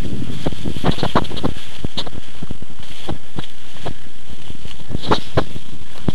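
Wind noise and rustling from grass brushing against a moving camera's microphone, with irregular knocks from the camera being jostled.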